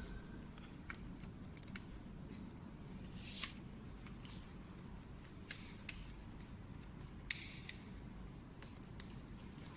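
Faint, scattered small clicks and light scrapes from handling the wire leads and the new double light switch while the light's leads are connected to its terminals.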